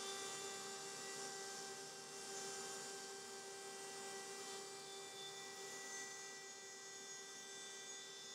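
Router in a router table running at speed, a quiet, steady high whine with many overtones, as a bearing-guided pattern bit flush-trims 3/4-inch MDF to a 1/8-inch plywood template.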